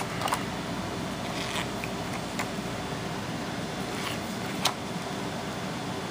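Pages of a glossy paper booklet being turned by hand: a few short rustles and crisp ticks, the sharpest about three-quarters of the way through, over a steady background hum.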